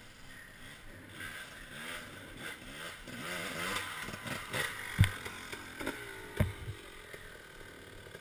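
Dirt bike engine revving up and down as the bike comes along the trail, with two sharp knocks a little past halfway, about a second and a half apart.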